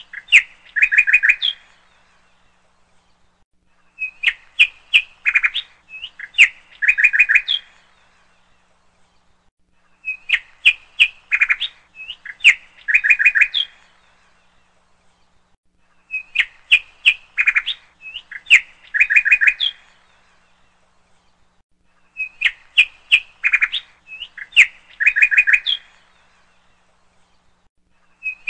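A looped recording of bird chirping: the same phrase of quick, sharp chirps plays for about three seconds, pauses, and repeats identically about every six seconds.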